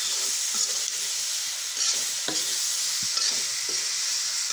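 Cubed pumpkin with spices sizzling in a hot kadai while a spatula stirs it, scraping and knocking against the pan every so often.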